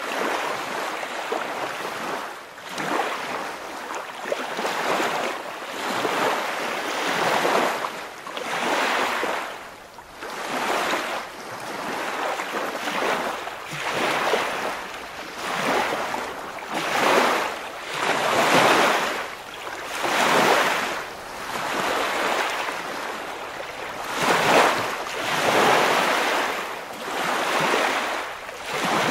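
Waves washing in and out, the rush of water swelling and falling back about every two seconds.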